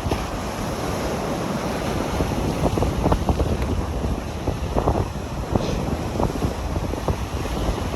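Wind buffeting the microphone in irregular gusts, with a heavy rumble, over the steady wash of ocean surf.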